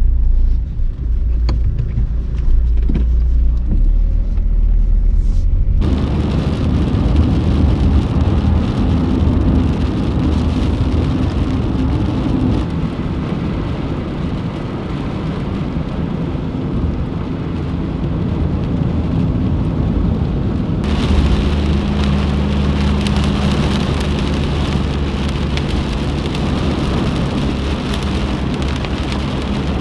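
Steady rain hiss over a low hum, which gets suddenly heavier and brighter about two-thirds of the way in. The first few seconds are instead a deep rumble with a few scattered clicks, ending in an abrupt change.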